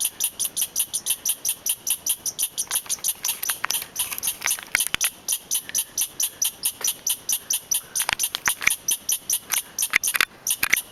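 Squirrel giving an angry alarm chatter: a fast, even run of short, high-pitched chirps, about five a second, kept up without a break, with a few sharper clicks mixed in.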